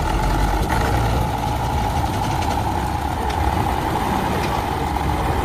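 A heavy truck's engine running steadily.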